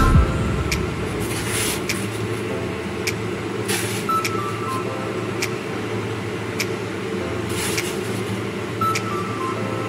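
Pot of water with pork pieces at a rolling boil on a stovetop: a steady low bubbling rumble, with a few sharp clicks.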